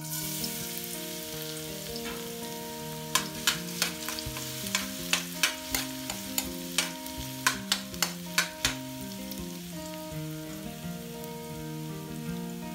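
Minced garlic sizzling in hot oil in a wok, with a steady hiss. Between about three and nine seconds in, a metal ladle clinks against the wok in a quick run of a dozen or so strikes as the garlic is stirred.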